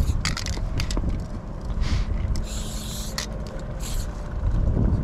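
Aerosol spray paint can hissing in short bursts against the metal side of a train car. There are four or five bursts, the longest about two and a half seconds in and lasting most of a second, over a steady low rumble.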